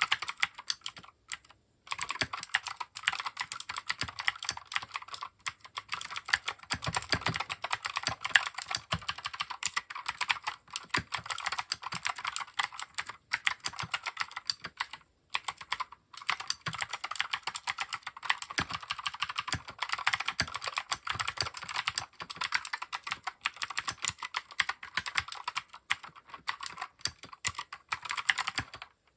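Fast, continuous typing on a Keychron K6 mechanical keyboard: a dense run of key clacks with a few brief pauses.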